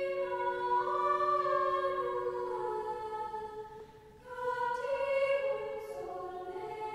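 A choir singing a slow melody, with a short break between phrases about four seconds in.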